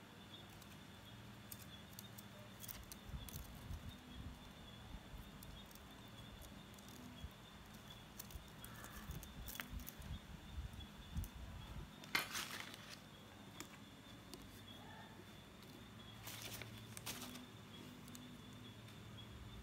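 Faint handling noise of hands winding coloured steel wire around a small wooden-stick model bench: soft rustles and light taps, with a louder brief rustle about twelve seconds in and another around sixteen to seventeen seconds. Under it runs a steady faint hum and a thin high whine.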